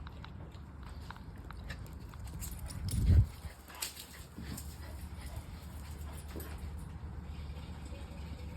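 German shepherd dog sounds, with scattered small clicks and one louder low sound that swells and peaks about three seconds in.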